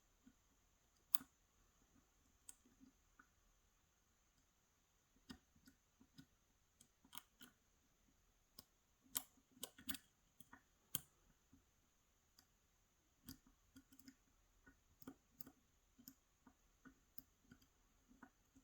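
Faint, scattered clicks and taps of lock-picking tools working the pins inside a Yale 2000 Plus lock while searching for a binding pin. The clicks come most often about halfway through.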